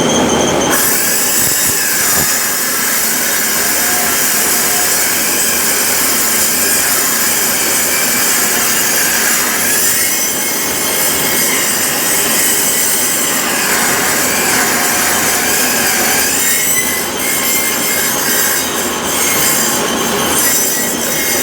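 Homemade steel pipe cutting machine cutting steel pipe: a loud, continuous screech of metal being cut, with a wavering squeal. The sound changes sharply a little under a second in.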